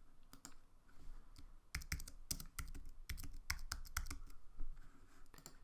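Typing on a computer keyboard: a run of irregular keystrokes, sparse at first and quicker from about two seconds in.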